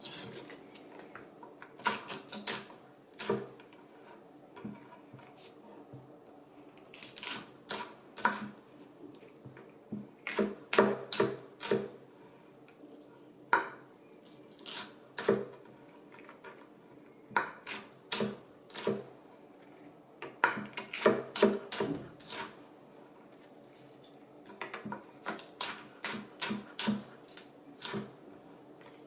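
Irregular light clicks and clinks of utensils against dishes, coming in quick clusters with short pauses between.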